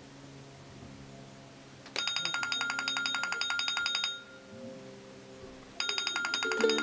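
iPhone timer alarm going off: a fast repeating electronic beep pattern that sounds for about two seconds, stops, then starts again near the end, with music coming in under it.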